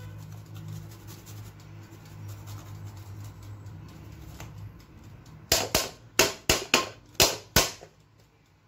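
A garlic clove being grated on a metal hand grater over a stainless steel colander: about seven sharp, quick strokes about halfway through. A low steady hum lies under the first half.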